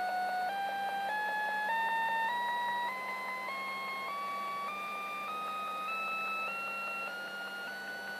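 Strange signal received on the 11-metre CB radio band: a tone with overtones that climbs in pitch in small steps, about two steps a second, over a steady low hum.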